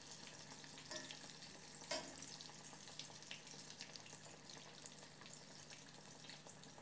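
Battered morel mushrooms deep-frying in oil in a small saucepan: a steady hiss with fine crackling, the batter just starting to turn golden.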